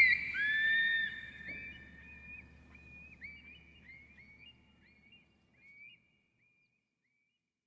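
Long-billed curlew calls: a string of short rising whistles, coming closer together and fading away over about six seconds, over a faint low hum that also fades.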